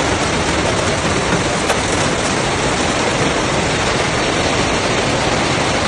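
Heavy rain pouring down in a storm: a loud, dense, steady hiss.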